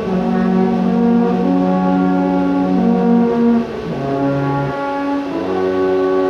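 Several brass horns playing slow, held chords in parts together, the notes changing every second or so.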